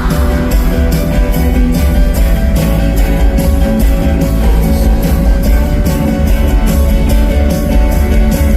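Live rock band playing an instrumental passage of a pop song at full volume: guitar over heavy bass and drums, with a steady beat of cymbal hits.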